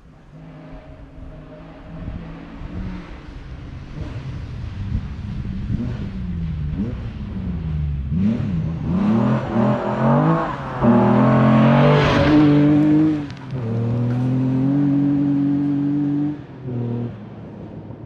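Datsun 240Z rally car's straight-six engine approaching on gravel, revving up and down through the gears. It is loudest as it passes about twelve seconds in, with a burst of gravel and tyre noise. It then holds steady high revs before lifting off sharply near the end.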